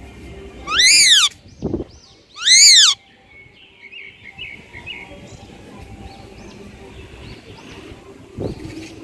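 Green parrot giving two loud screeching calls, each a short arching shriek rising and falling in pitch, about a second and a half apart, followed by softer chirps and chatter.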